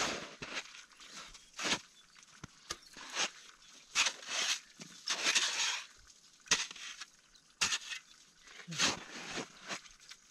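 Metal spade chopping into and scraping across hard, crusted snow in irregular strokes, roughly one a second, with a longer scrape about five seconds in.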